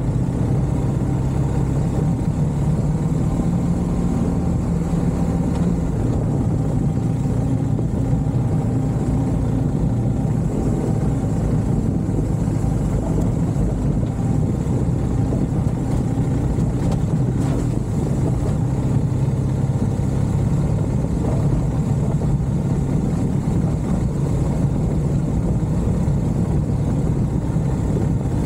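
A motor vehicle's engine running at a steady pace: a low, even drone that does not rise or fall.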